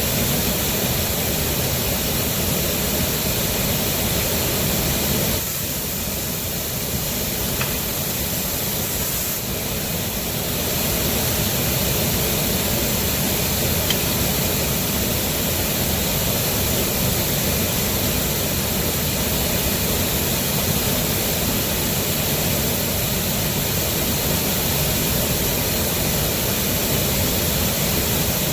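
A machine running steadily with a constant rushing noise, slightly quieter for a few seconds about six seconds in.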